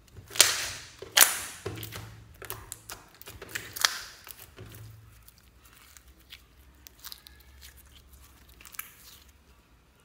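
Clear slime with small fruit slices mixed in, squeezed and stretched by hand, giving sticky crackling clicks and pops. The clicks are dense and loudest over the first few seconds, then thin out to scattered faint pops.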